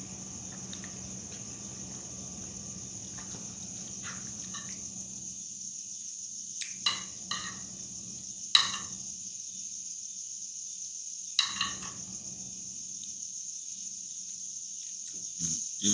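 A metal fork clicking and scraping against a ceramic plate a handful of times, between about six and twelve seconds in, over a steady high-pitched hiss and low hum.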